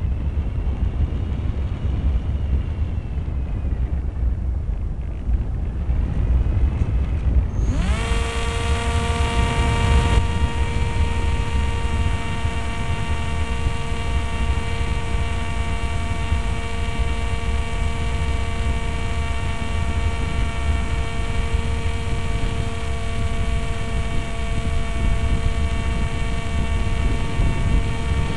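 Wind buffeting the microphone of an onboard camera on a Multiplex Easy Star RC plane in flight. About eight seconds in, the plane's electric pusher motor and propeller spin up quickly and run on as a steady high whine.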